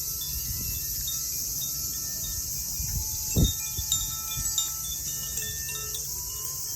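Koshi Aria chime ringing, scattered bright tones overlapping over a steady high insect chorus. A low thump about three and a half seconds in.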